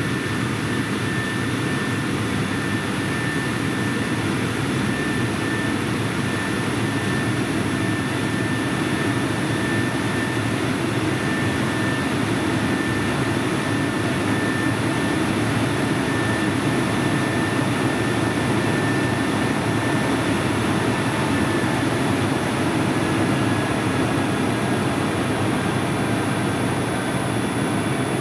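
IBM z890 mainframe's cooling blowers running at full speed during power-up: a loud, steady rush of air with a high whine in it, a sound that is a bit like an airplane. The whine drifts slightly lower in pitch near the end.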